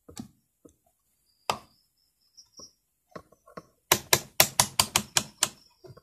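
Rotary range selector switch of a YX-360TR analog multimeter clicked through its detents: a quick run of about nine sharp clicks, roughly six a second, in the second half. A few scattered clicks and taps of the test leads being handled come before it.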